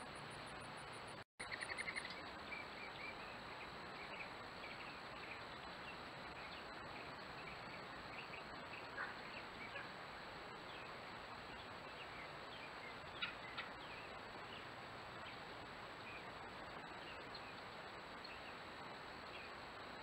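Outdoor ambience through a trail camera's microphone: a steady hiss with a thin, even high insect tone, and scattered short bird chirps. A quick run of chirps follows a brief dropout about a second in, and a few more come later.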